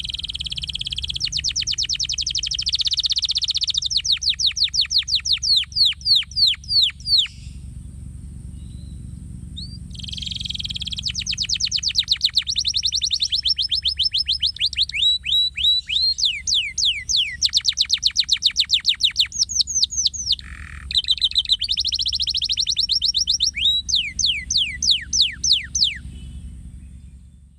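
Domestic canary singing: long rolling phrases of rapidly repeated, down-sweeping whistled notes, some runs very fast and others slower. The song breaks off for about three seconds around eight seconds in, then resumes in a second long phrase.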